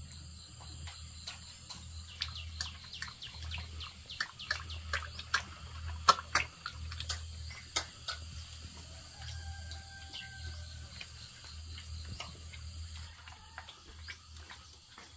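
Outdoor ambience: a steady high-pitched insect drone, with a quick run of sharp clicks and short falling chirps between about two and eight seconds in, the loudest click about six seconds in. A short held whistle-like call about nine to ten seconds in.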